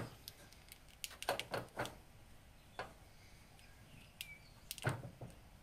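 Faint scattered clicks and rustles of a cable in split corrugated plastic tubing being pushed and wedged by hand into a light housing, a tight fit. A few louder clicks come at about a second and a half in and again near the end.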